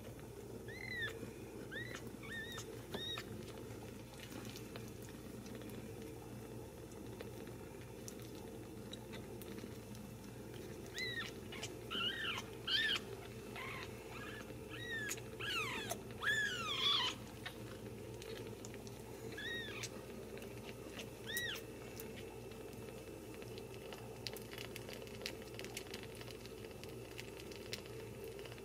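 Very young Ragdoll kittens mewing as they nurse: short, thin, high squeaks in scattered bunches, thickest around the middle, where a few longer falling cries come, over a steady low hum.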